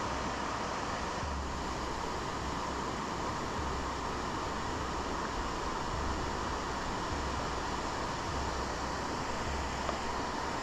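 Steady rush of a shallow river flowing over stones and small rapids, with wind buffeting the microphone in irregular low gusts.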